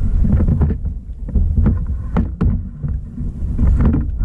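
Wind rumbling on the microphone aboard a small fishing boat, with a steady low hum underneath. Several short, sharp clicks and knocks are scattered through it.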